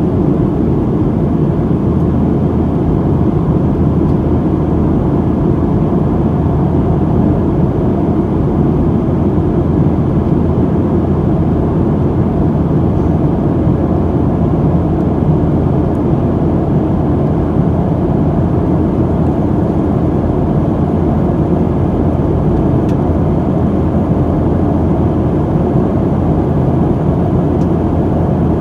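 Steady, loud jet engine noise inside the passenger cabin of a Boeing 737-700 with CFM56-7B turbofans. It is a dense, low noise that holds level throughout, with no distinct events.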